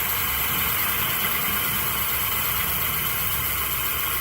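E-bike electric motor running at a steady speed: a constant hiss and whine with a low hum beneath, holding even without speeding up or slowing.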